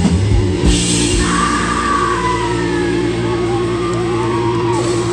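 Live rock band: the drums break off with a cymbal crash a little under a second in. Then the guitars hold a ringing chord under a wavering, bending high wail.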